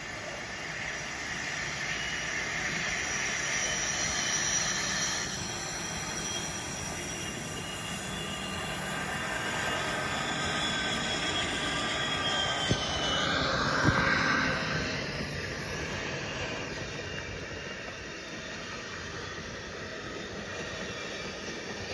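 A train rolling past with a steady rumbling, rolling noise. About halfway through a high whine falls in pitch, and two sharp clicks come about a second apart.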